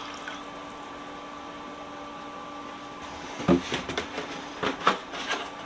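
A few short knocks and clatters over a steady background hum, from things being handled and set down around the Deox C soaking tub.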